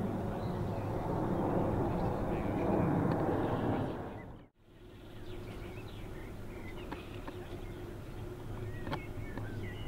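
Outdoor ambience: a broad rushing noise over a low steady hum drops out for a moment about four and a half seconds in. It comes back as a quieter steady hum with scattered bird chirps.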